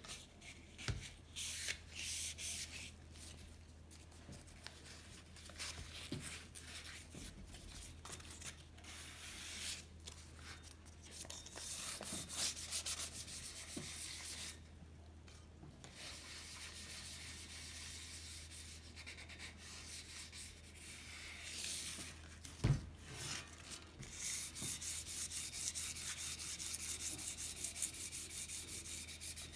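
Fine 1000-grit sandpaper rubbed by hand over the painted steel tube of a vintage bicycle frame, a hissing scrape in uneven strokes that turn quick and regular near the end. A single short knock comes about three-quarters of the way in.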